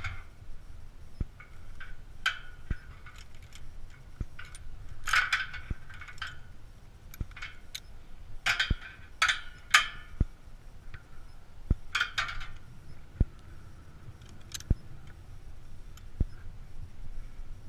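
Metal climbing gear clinking and jangling against the steel lattice of a tower as the climber moves on it, in several short bursts of clinks with the loudest near the middle. Faint soft ticks fall between the bursts.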